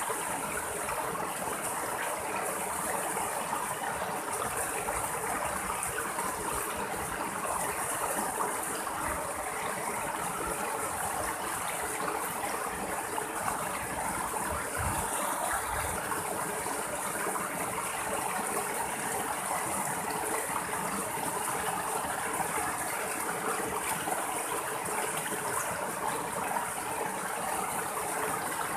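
Small rocky stream splashing steadily over low cascades between boulders.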